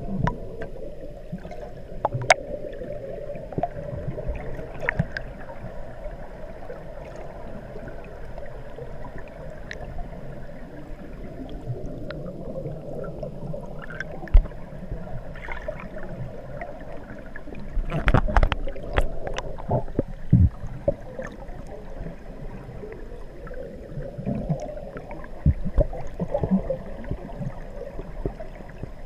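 Underwater sound of scuba divers' exhaled air bubbles rising past the microphone: a steady muffled gurgling rumble with scattered sharp pops and clicks, busiest a little past the middle.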